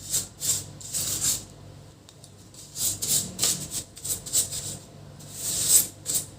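Short, uneven scratchy rubbing strokes, as when a brush cleans inside an opened laptop around its cooling fan, with a brief pause about two seconds in. A faint steady low hum runs beneath.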